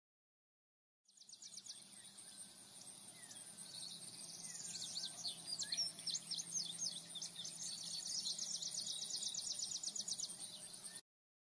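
Birds chirping over a high, fast insect trill. It starts about a second in and cuts off abruptly near the end.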